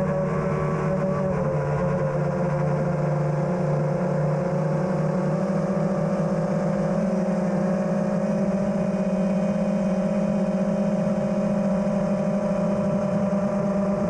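Electric motors and propellers of an FPV racing quadcopter running in flight: a steady hum of several held tones whose pitch shifts slightly with throttle, most noticeably about 1.5 and 7 seconds in.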